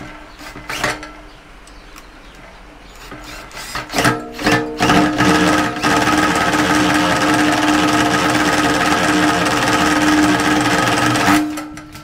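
Ryobi 18 V cordless drill, in low speed, driving an Enerpat wire stripping machine as it strips a dual-core cable. A few short blips of the drill come first, then a steady run with a whirring hum from about five seconds in. It stops abruptly near the end.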